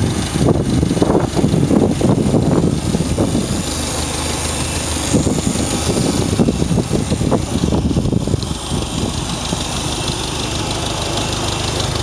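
1949 Farmall Super A tractor's four-cylinder gasoline engine idling steadily. It is in good running order, which the owner sums up as "it runs great".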